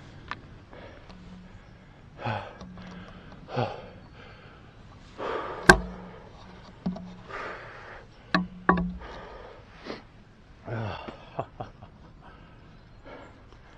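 A man breathing hard in short, heavy exhalations, mixed with sharp clicks and knocks of gear being handled; the loudest knock comes a little before the middle.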